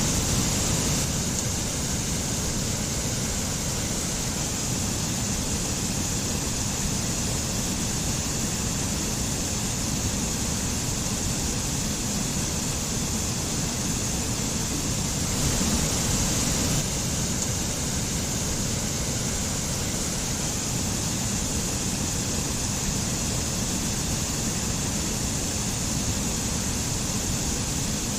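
Mountain stream and waterfall, water running in a steady hiss that swells briefly twice, right at the start and about halfway through.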